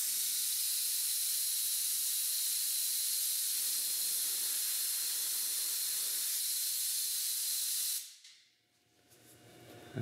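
Compressed air rushing out of an open quick-connect air coupler in a steady hiss as the compressor tank bleeds down from 140 PSI during a flow test of the fitting. The hiss stops about eight seconds in.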